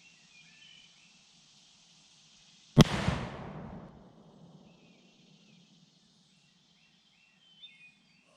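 A homemade firecracker, a tube packed with bubble wrap, goes off about three seconds in with a single sharp bang, and its echo rumbles away over about a second and a half. The blast leaves the tube uncracked and undented.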